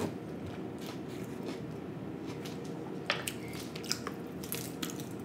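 Close-miked eating sounds from a whole fried snapper: chewing with small wet squishes, then a few sharp crackles and snaps in the second half as the crispy fish is torn apart by hand.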